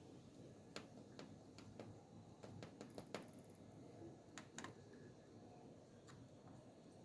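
Faint, irregular small clicks and taps over a low hiss, about a dozen of them, bunched in the middle.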